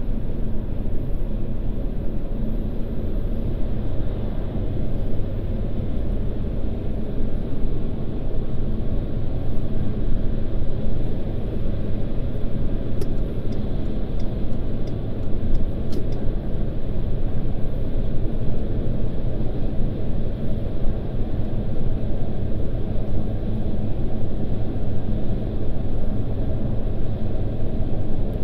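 Steady in-cabin rumble of a car driving at motorway speed: tyre and engine noise with a low hum, unchanging throughout, with a few faint ticks around the middle.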